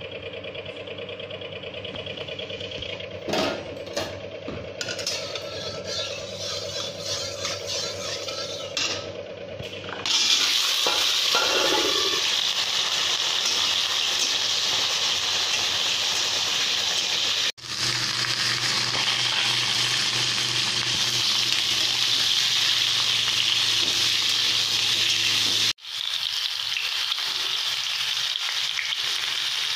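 Cubed potatoes, and later pointed gourds, frying in hot oil in an aluminium kadai and stirred with a metal spatula. A loud, steady sizzle starts suddenly about a third of the way in and cuts out briefly twice. Before it there is a steady hum with a few clicks.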